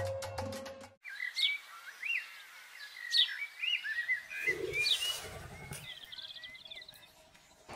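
Wild birds chirping and calling: many short chirps that glide up and down, with sharp high notes among them. Music cuts off about a second in, and a brief low rumble sounds near the middle.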